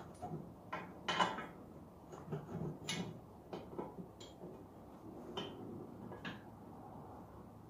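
About ten irregular metallic clinks and knocks of bolts and parts being handled, the loudest about a second in.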